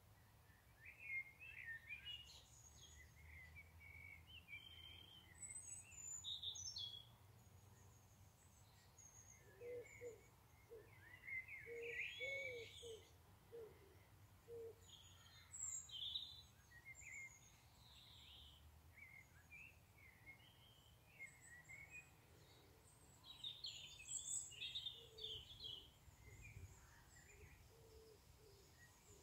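Faint outdoor birdsong: several birds chirping and trilling in scattered phrases, with a run of lower notes around the middle, over a steady low rumble of background noise.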